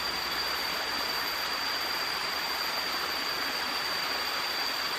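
Steady rushing of a stream, with a steady high-pitched whine over it.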